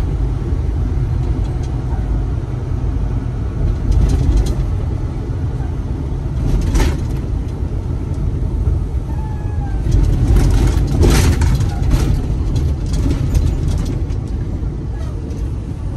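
Semi-truck cab on the highway: a steady low rumble of engine and road noise, with several brief louder rushes of hissing noise about 4 and 7 seconds in and again around 10 to 12 seconds.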